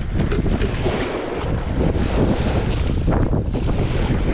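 Wind buffeting the microphone: a steady, rumbling rush of noise, heaviest in the low end, with water and boat noise beneath it.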